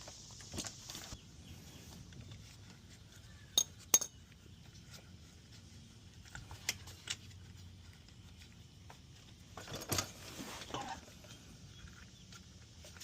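Light metallic clinks and clicks from the oil drain plug and a wrench being worked loose on a Can-Am Maverick R, with two sharp clicks close together about four seconds in. A short burst of noise comes near ten seconds.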